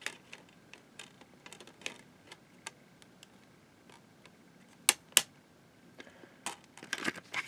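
Scattered light plastic clicks and taps from a hand handling DVDs on the hubs of a multi-disc plastic case, with two sharper clicks about five seconds in and a few more near the end.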